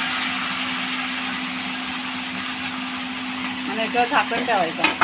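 Cucumber and rice-flour batter sizzling on a hot, oiled cast-iron tawa as it is poured on, the hiss slowly dying down, over a steady low hum. A brief voice cuts in near the end.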